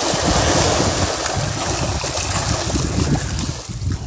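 Many farmed fish thrashing and splashing at a pond's surface, a dense churning of water with many small slaps, loudest in the first second and easing somewhat near the end.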